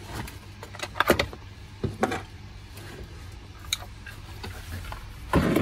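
Hands handling an open rack server's metal chassis and parts: a few scattered clicks and light knocks, the sharpest about a second in, then a louder rustling scrape near the end.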